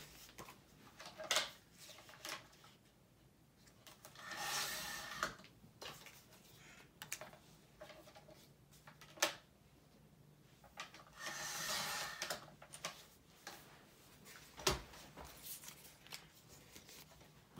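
Paper being cut and handled on a craft table: two drawn-out cutting strokes of about a second each, about four and eleven seconds in, with scattered light clicks and taps and a sharper knock near the end.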